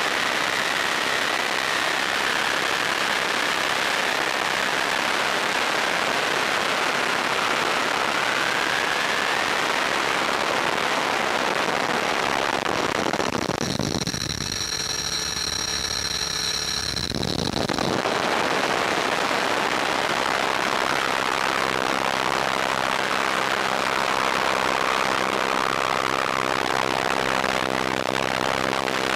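Electric RC helicopter in flight heard from its onboard microphone: a steady rush of rotor wash and wind with a faint wavering motor whine. About halfway through, the rush thins out for a few seconds, leaving a few steady high tones.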